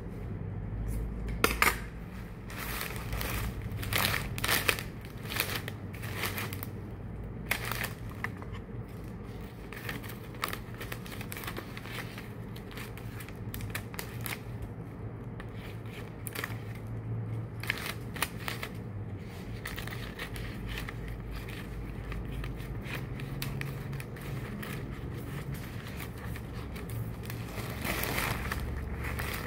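Irregular clicks and crinkling from material being handled, over a low steady hum.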